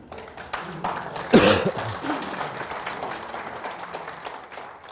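Audience applauding, with one louder burst about a second and a half in; the clapping thins out near the end.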